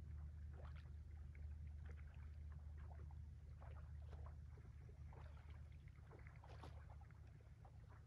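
Faint, steady low drone of a distant ship's engine carrying across calm sea water, with soft, irregular little splashes of water lapping at the shore.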